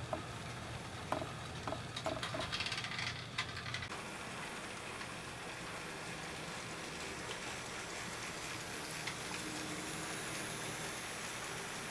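HO-scale model trains running on the track: a steady rolling hiss of wheels on rail, with a run of light clicks and ticks in the first few seconds as a train passes.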